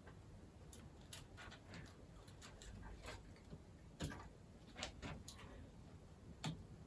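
Faint, scattered small clicks and taps, with a couple of louder clicks about four and six and a half seconds in: internal cable connectors being unplugged inside an opened laptop.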